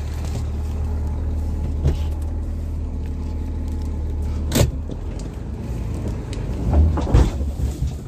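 Jeep XJ engine running with a steady low hum. A sharp knock comes about halfway through, and a few heavy thumps follow near the end.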